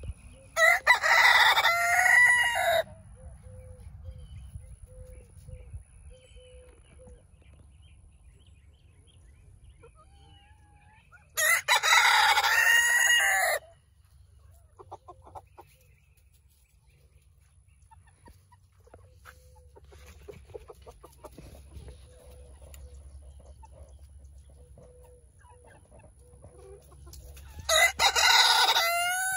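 A rooster crowing three times, each crow about two seconds long and spaced roughly ten to fifteen seconds apart, with soft intermittent clucking from hens between the crows.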